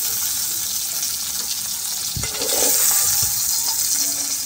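Whole onions sizzling in hot oil in a kadhai, fried through, as a steel ladle scoops them out, with two knocks of the ladle against the pan about two and three seconds in.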